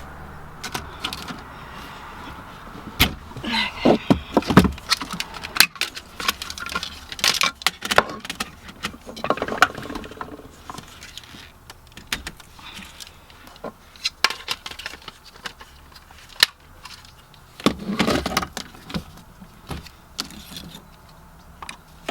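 Hand tools and car interior trim clicking, clinking and knocking in irregular clusters while the MINI's center console is being taken apart.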